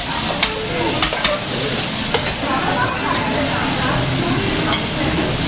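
Asari clams sizzling on a hot steel teppanyaki griddle under a steel dome lid: a steady frying hiss. A few sharp metallic clicks sound in the first three seconds.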